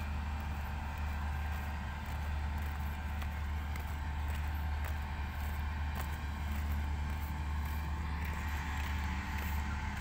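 Steady low diesel rumble of a Mitsubishi motor grader working at a distance.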